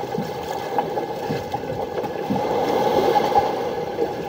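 Wooden outrigger fishing boat under way: a steady rush of water along the hull over a constant hum, with small irregular slaps of water.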